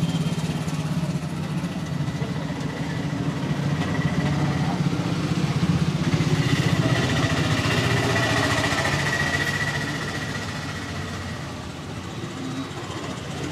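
A small motor or engine running steadily with a fast pulsing buzz, louder through the middle, then easing off.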